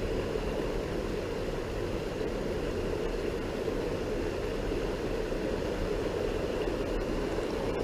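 Steady low rushing of flowing creek water, even in loudness throughout.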